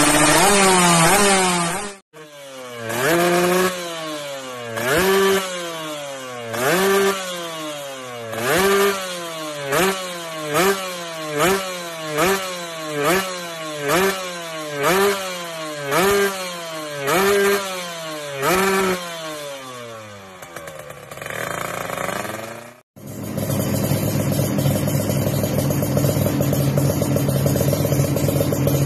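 Two-stroke Kawasaki Ninja engine through a KDX stainless racing exhaust, revved in quick throttle blips about once a second. Each blip rises sharply in pitch and falls back. Near the end the engine idles steadily.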